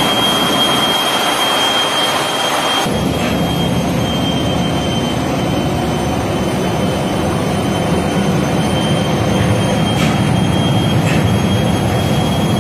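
Loud, steady machinery noise aboard a tuna longline fishing vessel, with a thin high whine over it. About three seconds in it changes abruptly to a heavier, lower rumble.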